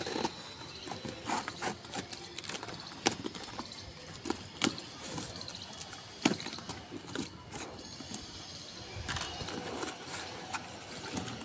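Cardboard shipping box being opened by hand: packing tape picked at and torn, cardboard flaps scraped and pulled open, giving irregular scratches, taps and crackles.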